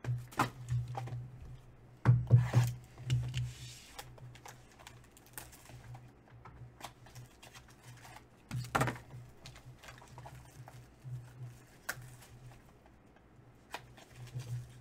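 Trading card pack being torn and peeled open by hand: crinkling clear plastic wrapper with scattered clicks and taps, loudest about two seconds in and again near nine seconds, over a faint steady low hum.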